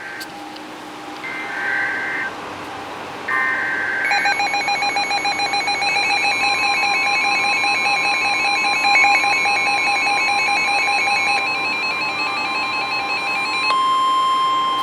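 NOAA Weather Radio alert opening: two short screechy SAME data header bursts, each under a second, then from about four seconds an electronic alarm beeping rapidly. A steady 1050 Hz warning tone joins it and grows louder near the end.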